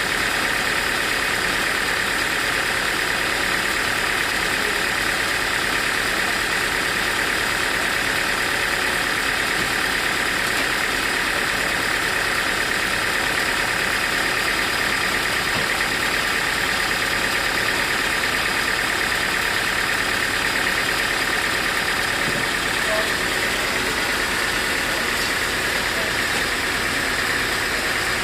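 Sawmill running steadily: a continuous engine-driven machine noise with a steady whine from the saw, unchanging throughout.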